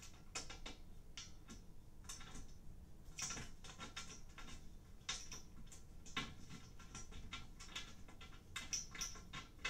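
Faint, irregular small clicks and ticks of bolt hardware (a small bolt, washers and an Allen key) being handled and threaded by hand into a bed frame's metal leg support beam at an awkward, tight spot.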